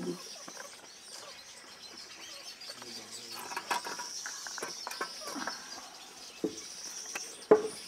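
Outdoor ambience: small birds chirping over a steady high-pitched insect drone, with a sharp click near the end.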